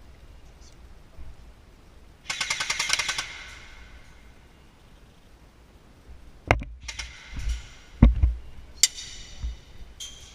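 Airsoft rifle firing a rapid full-auto burst of about a second, a quick even rattle of shots. Later come several low thumps and a second, shorter burst near the end.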